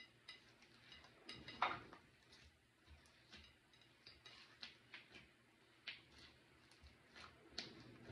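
Hands kneading and squeezing a large lump of slime: faint sticky clicks and small pops at irregular intervals, the loudest about one and a half seconds in.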